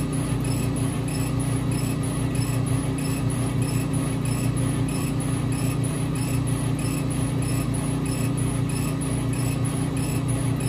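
Epilog Fusion M2 40 laser engraver raster-engraving wood: a steady low machine hum with a regular high-pitched pulse, about three a second, as the laser head sweeps back and forth across the sign.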